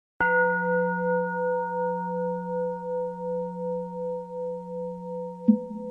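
A singing bowl struck once, ringing on in a long, slowly wavering hum of several steady tones; near the end a second, lighter strike adds a slightly higher ringing tone.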